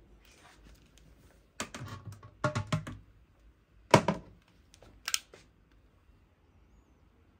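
A run of short clicks and knocks in a small tiled room: a clatter of several about two seconds in, one sharper knock about four seconds in, then a couple of light clicks.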